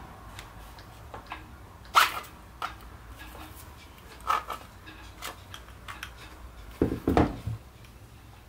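Clicks and knocks of plastic and metal parts as the armature of a Bosch GWS 9-125 S angle grinder is worked free and pulled out of its motor housing by hand. A sharp click about two seconds in is the loudest, and a short cluster of knocks comes near seven seconds.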